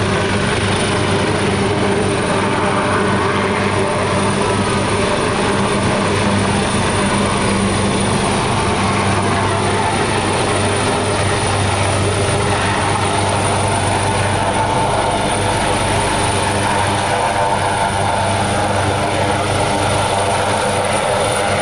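AgustaWestland AW139 helicopter hovering: the steady beat of its main rotor and the even drone of its twin turbine engines, unchanging throughout.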